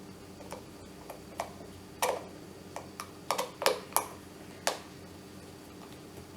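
About ten irregular, sharp clicks and taps of plastic kettle parts and a tool being handled during reassembly of an electric travel kettle, loudest about two seconds in and again around three and a half seconds.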